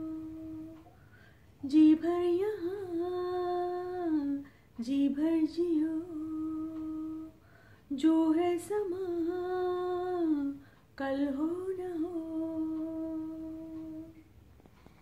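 A woman humming a slow tune in long held notes, about four phrases with short pauses between them.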